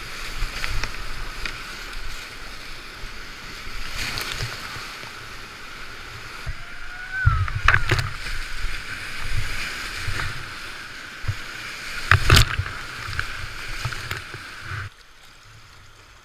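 Big whitewater rapids rushing loudly around a kayak as it paddles through, with uneven low thumps and two sharp splashes from waves and paddle strokes hitting the boat. Near the end the roar drops away abruptly to much quieter moving water.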